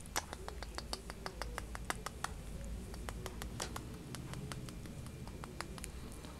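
A young hare's mouth clicking as it licks and nibbles at a couch cushion: a run of small sharp clicks, several a second and irregular, a few of them louder in the first half.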